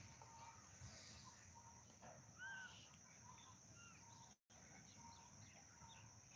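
Near silence with faint bird calls: short arched chirps scattered every second or so over a steady thin high hiss, with a brief dropout in the sound about two-thirds of the way through.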